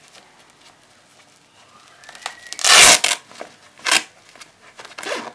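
Hook-and-loop (Velcro) fastener on a combat-pants pocket flap being ripped open. There is one loud rip of about half a second near the middle, then two shorter rips, over soft fabric handling.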